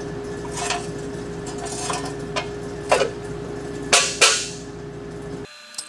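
Steel engine rear plate clinking and clanking against the back of a Ford 390 V8 block as it is worked into place, with three sharper metal knocks near the end and a steady hum underneath. Music starts just before the end.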